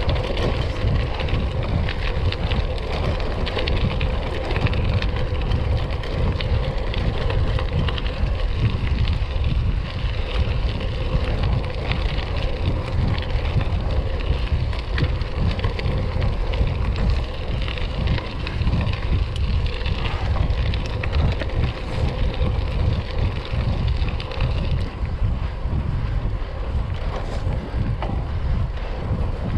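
Wind buffeting the microphone over the rumble and crunch of bicycle tyres rolling on a gravel path: a steady rushing noise with scattered small ticks of loose stones.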